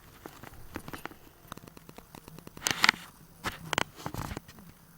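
Small plastic Lego pieces being handled and clicked together: a run of light clicks and rattles, with a few louder clacks past the middle.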